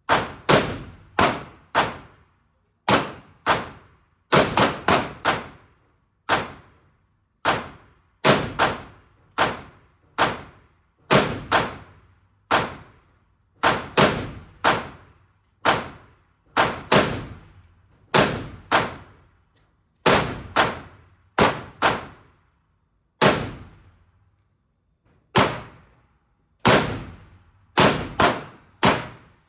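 Repeated handgun shots at an indoor shooting range, fired at an irregular pace, often in quick doubles and triples, each crack followed by a short echo off the range walls.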